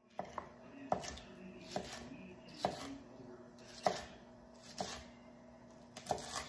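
Kitchen knife chopping leafy greens on a wooden cutting board: about nine sharp knocks of the blade on the board, roughly one a second at an uneven pace, some in quick pairs.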